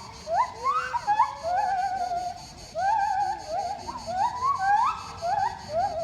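Monkeys calling loudly: a continuous run of overlapping rising, whooping cries from several animals, some drawn out with a wavering pitch.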